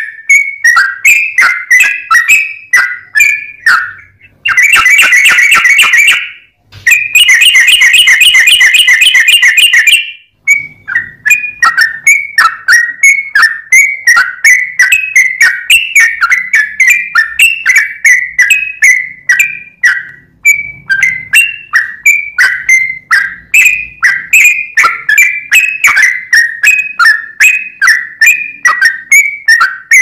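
Yellow-vented bulbul singing a run of short, quick chirps, about three a second. Twice early on, the chirps give way to a fast, dense trill: once for a second and a half, then for about three seconds, the loudest stretch of the song.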